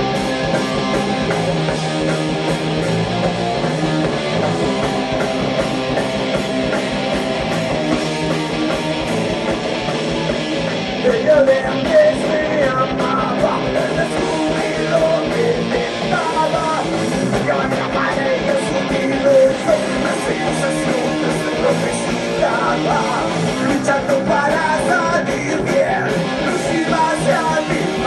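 Rock band playing live, with electric guitars and a drum kit through the PA, heard from among the audience in a concert hall. From about eleven seconds in, a wavering melodic line rises above the band.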